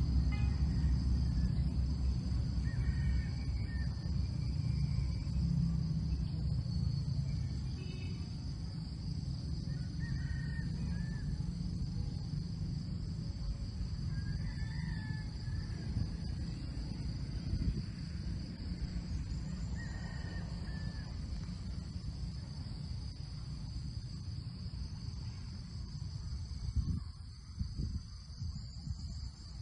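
Steady outdoor insect chorus: a continuous high drone with a faster pulsing buzz above it, over a low rumble. A few short calls break in now and then.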